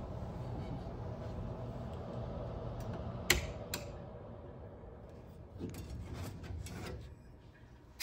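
Wall-mounted heating unit's fan running with a steady hum; a sharp click a little past three seconds in as its wall switch is flipped, after which the fan dies away. The metal louvered access grille then rattles and scrapes as it is worked loose, ending with a click.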